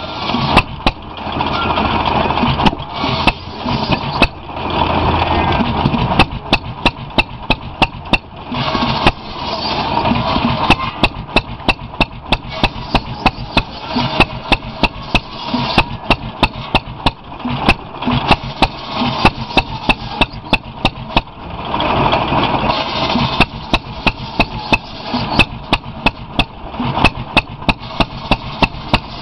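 Antique International stationary gas engine running a buzzsaw, its exhaust firing in sharp pops about twice a second. The circular saw blade cuts through wood slabs in several stretches of a few seconds each.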